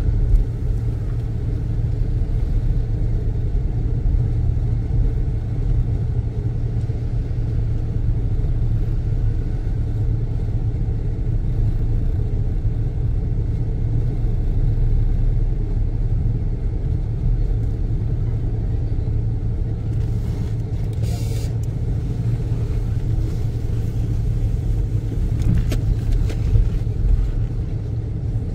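Steady low rumble of a car driving at low speed, with engine and road noise heard from inside the cabin.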